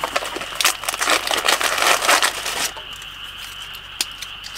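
Plastic packaging crinkling and rustling as a pouch is opened and rummaged through for about two and a half seconds, then a single sharp click near the end. Under it runs a steady high-pitched chorus of frogs and insects.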